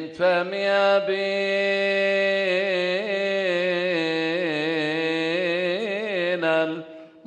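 A man chanting a Coptic Orthodox liturgical hymn solo into a microphone: one long melismatic line on a held note that wavers through ornaments in the middle and fades out near the end.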